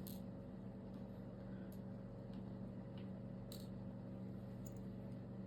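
A steady low electrical hum with a few faint, sharp clicks scattered through it, from small screws and tools being handled on a repair bench.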